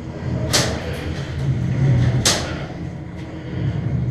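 Two sharp airsoft gun shots, each a short crack with a hissing tail, about a second and a half apart, over a steady low hum.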